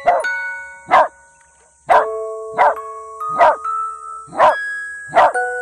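A dog barking, seven short barks about once a second, over background music with bell-like mallet notes.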